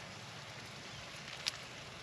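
Mule deer steak frying in grease in a skillet over a campfire: a steady sizzle with a sharp pop about one and a half seconds in.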